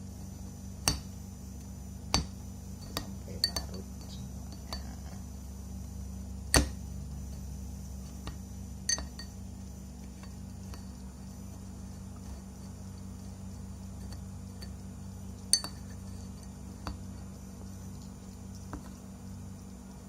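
Scattered clinks and knocks of glassware and utensils, about nine in all, the loudest about six and a half and fifteen and a half seconds in, over a steady low hum.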